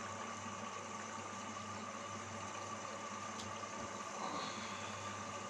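Indesit washing machine running through its wash cycle: a steady motor hum, with a faint click about three and a half seconds in.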